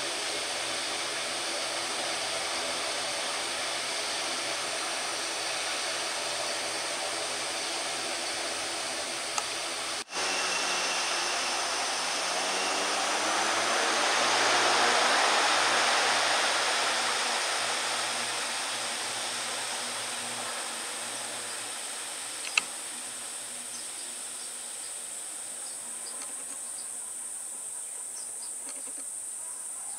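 Citilink ATR 72 twin-turboprop airliner holding on the runway with engines and propellers running in a steady droning hum. About a third of the way in the engines power up for the takeoff roll: the sound swells to its loudest about five seconds later, then fades as the aircraft accelerates away down the runway.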